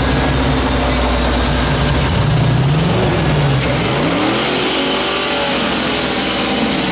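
Rock crawler buggy's engine running at low revs under load, then revving up with a rising pitch about three seconds in as it climbs over a boulder.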